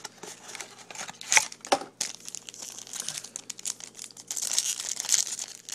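A cardboard trading-card mini-box is opened by hand and the foil pack inside crinkles and tears. There are two sharp clicks in the first two seconds and the densest crinkling comes near the end.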